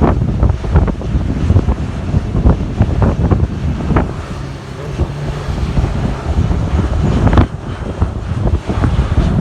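Strong gusty wind buffeting the microphone, drowning out most other sound, with a faint low steady hum showing through in the middle.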